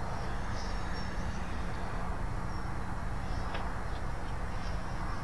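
Steady low buzzing hum with an even hiss under it, and a few faint, brief high chirps.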